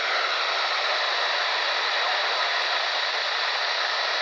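Steady static hiss from a NOAA weather radio receiver's speaker, with no voice coming through.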